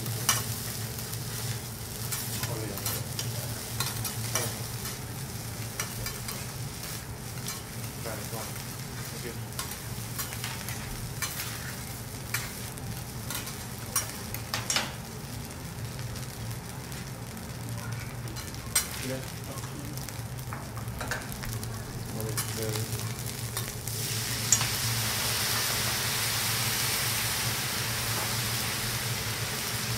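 Food frying on a teppanyaki griddle: a steady sizzle with the sharp clicks and clacks of metal spatulas working on the hot plate, over a low steady hum. Late on, just after a sharp clack, the sizzle turns louder and brighter.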